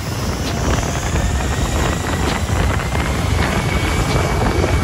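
Aircraft engine noise: a low rumble with a faint whine that rises slowly in pitch, growing slightly louder, over wind on the microphone.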